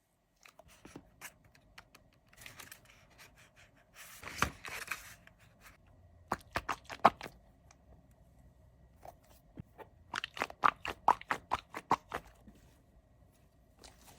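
Hands handling squishy toys, making scattered scraping and crinkling sounds. There is a short tearing rustle about four seconds in and a quick run of sharp clicks around ten to twelve seconds.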